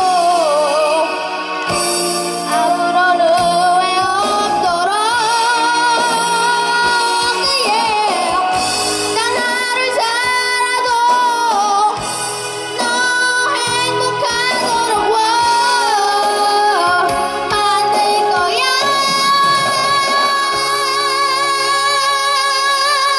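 A pop song with a child singing the lead vocal into a microphone over a backing track, ending on one long held note.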